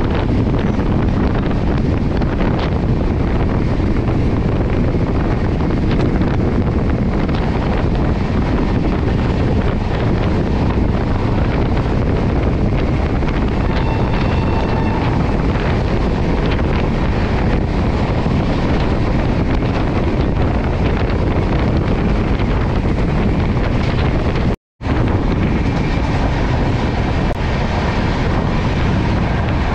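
Shatabdi Express passenger train running at speed: a steady rumble and rush of the coach on the track, with wind buffeting the microphone. The sound cuts out for a split second about 25 seconds in.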